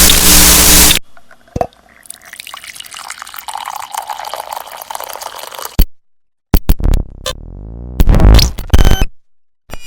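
A string of separate short sound effects from a motion-graphics sound pack, one after another with gaps. A loud hiss cuts off about a second in, a quieter hazy texture runs for a few seconds, and then come sharp clicks, a sweeping tone and a loud burst near the end.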